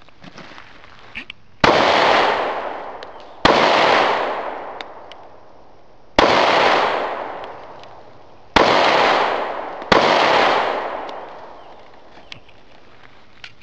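Five shots from a Kahr CW40 .40 S&W pistol, fired at uneven intervals over about eight seconds. Each crack is followed by a long echoing tail that fades over a second or two.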